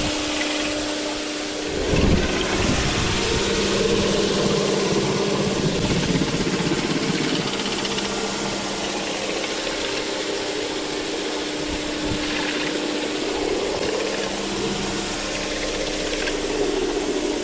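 Electric pressure washer's motor and pump running with a steady hum, louder from about two seconds in. This unit is faulty: it turned on without pressurising at first and only built pressure late.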